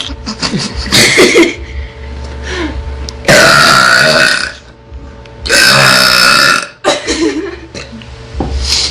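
A girl burping loudly. There are two long belches, each lasting over a second: one about three seconds in and another about five and a half seconds in, with shorter sounds around them.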